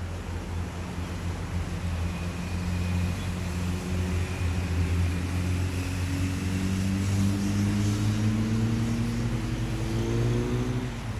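A motor vehicle engine running, its pitch rising slowly over several seconds and falling away near the end.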